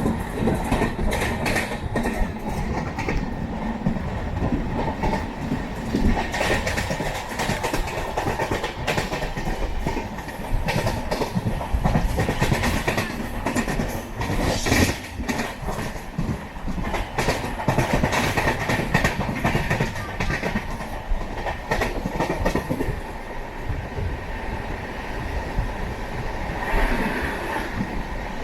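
Moving express train heard from its sleeper coach: a steady rumble of wheels on the track, with clickety-clack and rattling knocks over the rail joints all the way through.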